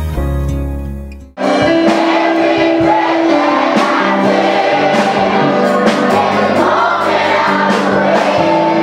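Soft background music fades out, and about a second and a half in it cuts suddenly to a crowd singing a worship song together, with a rhythmic beat under the voices.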